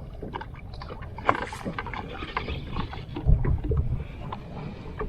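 Small scattered clicks and knocks of handling aboard a fishing boat, with a brief low rumble about three seconds in.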